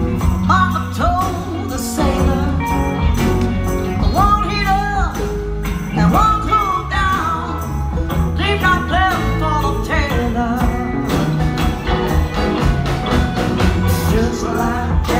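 Live country-rock band playing a song on electric guitars, pedal steel guitar and bass with a steady beat, a woman singing the lead vocal over it.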